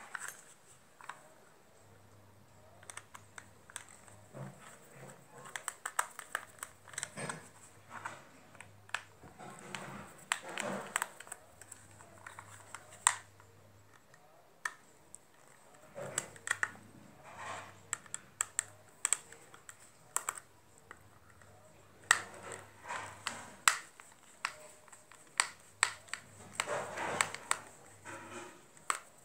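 Irregular small clicks, taps and scrapes of a screwdriver working the screws of a plastic hot glue gun housing as it is handled and turned in the hands.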